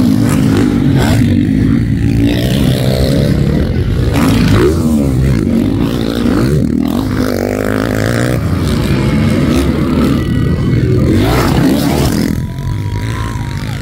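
Several motocross dirt bikes racing on a dirt track, their engines revving up and down in pitch as they climb, jump and pass.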